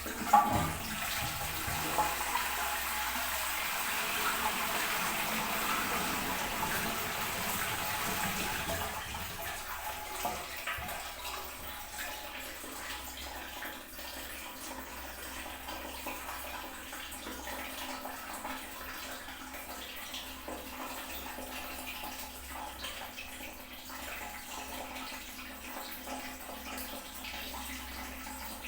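Toilet flushing: a sharp clunk just after the start, then a rush of water that dies down after about ten seconds. It gives way to the steady hiss of the cistern refilling.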